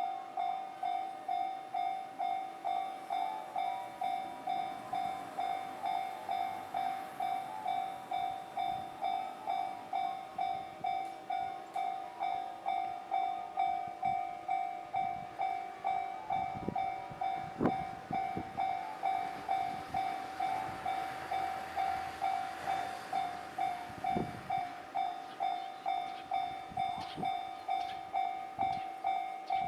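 Japanese railway level-crossing warning bell ringing with an even, repeating ding about twice a second. From about the middle a train passes over the crossing: a rumble with a few sharp wheel clacks over the rail joints.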